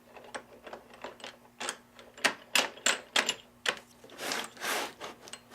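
Irregular clicks and knocks of hard plastic and metal parts as a router table box joint jig is handled and fitted together, with two short sliding swishes about four seconds in.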